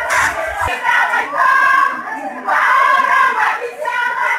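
A crowd of voices shouting and cheering, with loud, high, held calls rising over it again and again. Low music with a beat cuts off under a second in.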